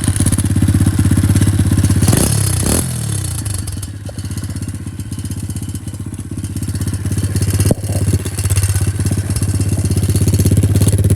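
125cc dirt bike engine running steadily at idle, with a few clicks and knocks. It drops somewhat quieter about two seconds in and comes back up to full level after about eight seconds.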